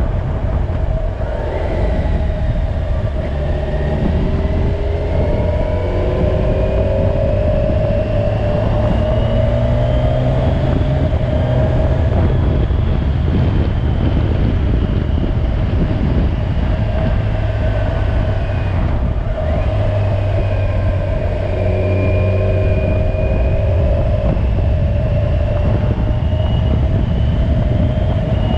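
Kawasaki Ninja 1000SX's inline-four engine running under way, its note climbing slowly twice as the bike gathers speed, over a steady rush of wind and road noise.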